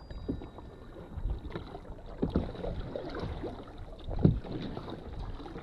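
Canoe paddle strokes: the blade dipping and pulling through the water about once a second, the sharpest stroke about four seconds in, over a light rush of wind on the microphone.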